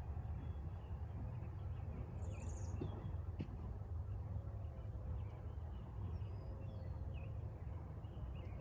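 Scattered short bird chirps over a steady low background rumble.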